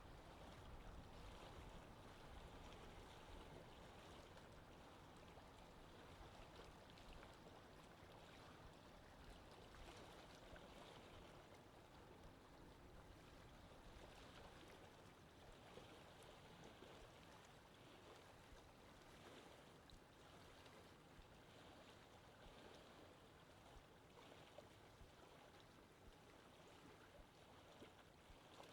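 Near silence: faint, even background noise with no distinct events, slowly easing off.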